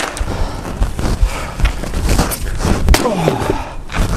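Wooden boards being handled and set on a wooden chopping stump: sharp wooden knocks and thuds, the loudest about three seconds in.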